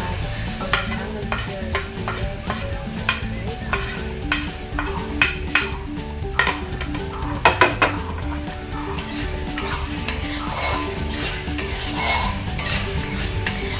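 Pork pieces sizzling in hot oil in a steel wok while a metal spoon stirs them, clinking and scraping against the wok. The clicks come irregularly, with a cluster of sharper ones about seven to eight seconds in.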